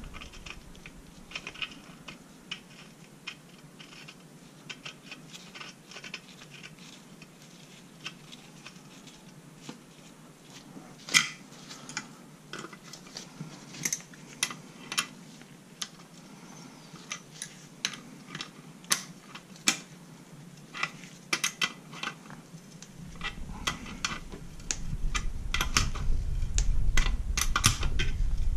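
Metal hand tools clicking and clinking against the engine case and gear as a gear puller is worked onto the gear and held with an adjustable wrench: irregular sharp taps throughout, busier in the second half, with heavier handling rumble near the end.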